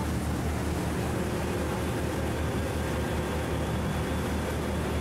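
River sightseeing boat's engine running steadily under way, a low drone with an even rushing hiss over it.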